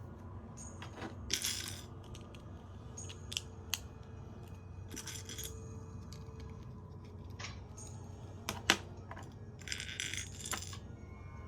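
Small hard LEGO plastic pieces clicking and rattling as they are handled and fitted: a scatter of sharp clicks, the loudest near the end, and three brief rummaging rattles.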